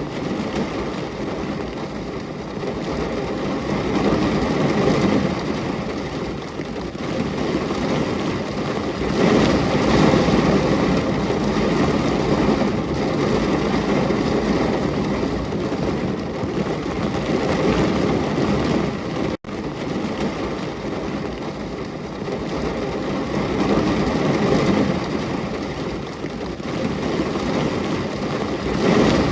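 Steady heavy rain, a dense continuous hiss that swells and eases every few seconds. The sound cuts out for an instant about two-thirds of the way through.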